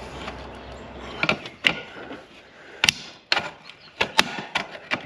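Hand tin snips cutting thin steel roof flashing: a run of sharp snipping clicks starting about a second in, roughly two a second.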